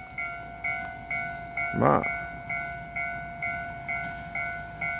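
Railway level crossing alarm ringing about twice a second as an approaching train nears the station, with one brief louder sound about two seconds in.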